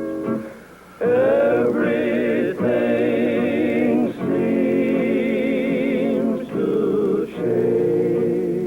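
A male vocal harmony group singing long held wordless chords with vibrato, the voices entering about a second in after a brief lull and pausing briefly between phrases.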